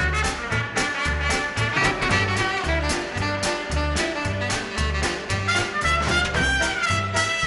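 Small swing band playing an instrumental passage: upright bass walking in steady notes about two a second, drums keeping time, and saxophone and trumpet lines over piano.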